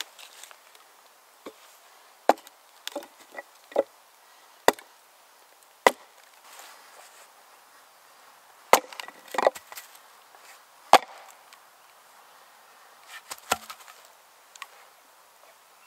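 Heavy green-oak maul striking wooden wedges driven into the split of an ash log: about ten sharp wooden knocks at uneven intervals, several close together around the middle.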